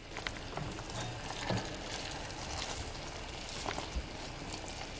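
Sugar syrup boiling hard in a stainless steel saucepan, a steady bubbling sizzle scattered with many small pops and crackles; the syrup is at the 300 °F hard-crack stage, ready for coating candied fruit.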